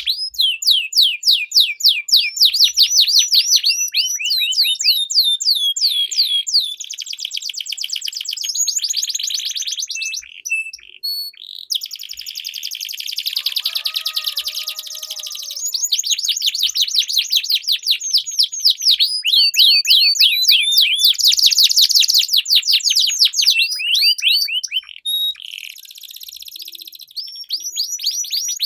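Domestic canary singing long rolls: rapid trills of repeated high notes, each run lasting several seconds before switching to a new phrase, with only brief pauses.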